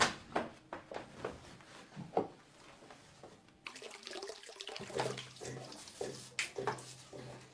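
A run of short knocks, then, from about halfway, water running steadily from a water-dispenser tap into a mug. The dispenser has been left running.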